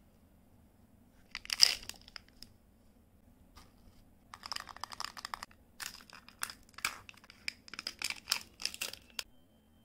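Candy wrappers being crinkled and torn open: a short, loud burst of crackling about a second and a half in, then a longer run of dense crackling from about four seconds in that stops shortly before the end.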